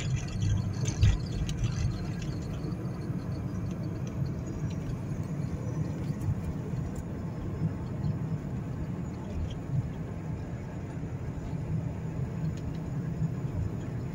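Steady low rumble of a car driving at highway speed, tyre and engine noise heard from inside the cabin, with a single thump about a second in.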